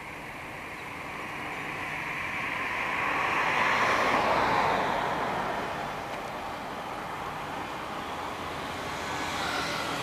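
A road vehicle passing by: its noise swells to a peak about four seconds in, dropping in pitch as it goes, then fades. The noise starts to rise again near the end.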